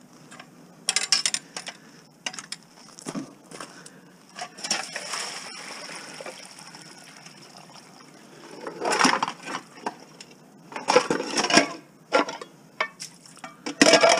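Metal pots and pans clanking and rattling together as they are picked up and nested inside one another on gravel. About four to six seconds in, water is tipped out of a pot and splashes onto the ground.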